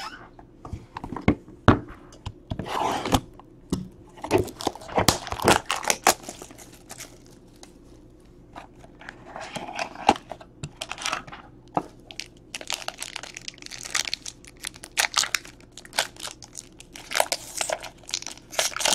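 Trading-card box and foil pack being torn open by hand: cardboard tearing, then a foil wrapper crinkling and ripping. There are irregular sharp crackles and short rustles throughout.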